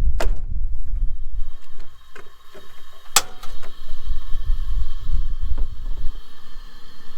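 Wind gusting on the microphone, in two low rumbling spells, with two sharp clicks or knocks, one right at the start and a louder one about three seconds in. Under them a faint steady hiss with thin humming tones starts after about a second and a half.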